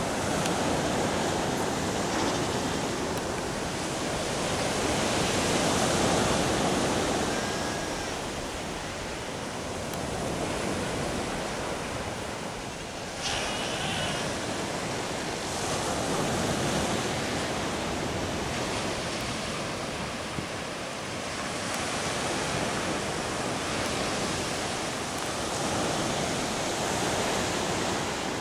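Ocean surf washing onto the beach, swelling louder and softer about every ten seconds, with wind on the microphone.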